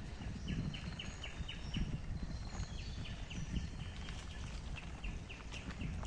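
Bicycle rolling along a dirt forest path, a steady low rumble with small bumps and rattles. Over it an animal in the forest chirps in a fast, regular series of short high calls, about four a second, which fades after about four seconds.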